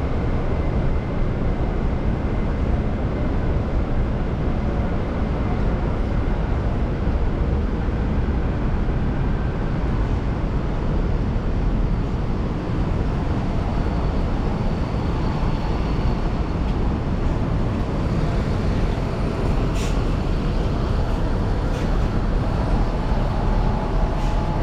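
Steady dense city street din: traffic noise from vehicles running, with faint tones and a few short clicks over it in the second half.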